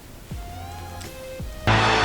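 Background music in a quiet passage, with a few gliding high tones and two low falling sweeps. Near the end the full music comes in loud with a heavy steady bass.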